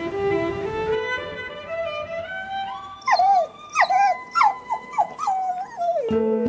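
Soft instrumental background music. From about three seconds in, an animal gives a run of about six short, high yelping calls, each dropping in pitch, over the music.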